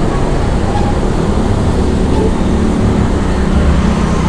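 Steady low rumble of road traffic with motorcycles running.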